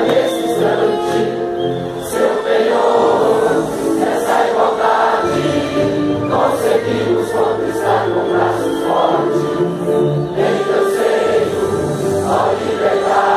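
A large crowd singing a Brazilian patriotic hymn together in unison, many voices on long held notes that move from phrase to phrase.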